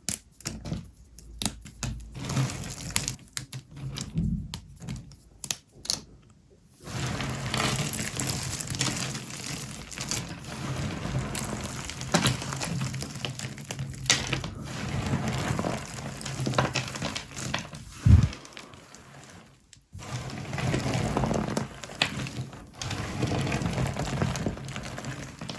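Dry, microwave-puffed starchy soap being broken and crushed: a few separate crisp snaps at first, then dense, continuous crackling and crunching. One heavy thunk comes about two-thirds through, followed by a brief pause and more crackling.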